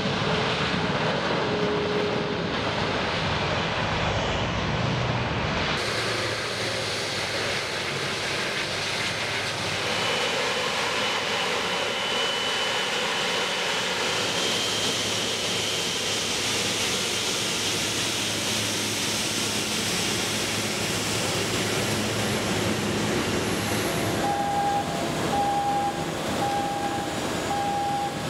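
Widebody jet airliner turbofan engines running, a steady loud rush of jet noise that changes character about six seconds in, with a steady high whine for a while. Near the end, a short electronic warning beep starts repeating about once a second.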